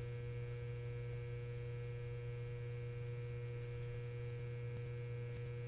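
Steady electrical hum, a neon-sign buzz sound effect: a low drone with fainter fixed higher tones over it, held unchanged throughout.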